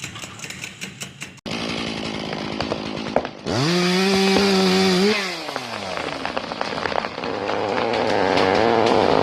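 A run of different production machines. First a rapid, regular clicking, then a motor that spins up, runs steadily for about a second and a half, and winds down. Near the end, a rougher mechanical running noise grows louder.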